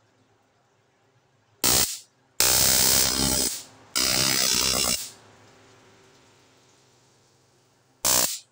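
Flashlight stun baton firing across its electrodes: a loud electric arc crackle in four bursts, a short one, two of about a second each, and a last short one near the end.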